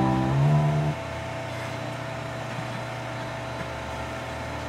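Resonator guitar strings ringing, the pitch stepping up as a string is tightened, then cut off by a hand damping the strings about a second in. After that, only a steady low background hum.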